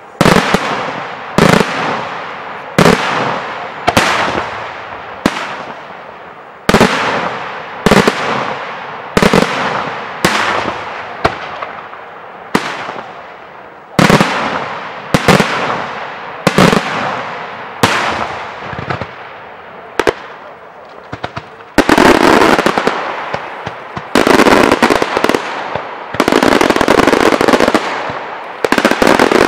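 Daytime fireworks: aerial shells bang one after another about once every second and a bit, each bang trailing a long rolling echo. From about 22 seconds in, the firing turns into dense, rapid crackling volleys that run almost without a break.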